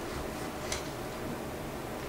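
A knife slicing slowly through a large cooked Arzuman kufta (giant meatball) on a plate. It is quiet, with one faint click less than a second in.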